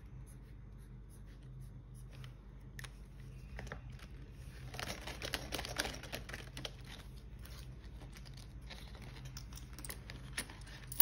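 Paper and plastic cash envelopes rustling and crinkling as they are handled, with small clicks, busiest about halfway through, over a faint steady low hum.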